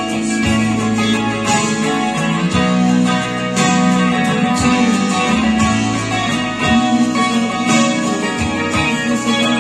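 Solid-body electric guitar strummed and picked in a steady rhythm, chords changing with an accent about once a second.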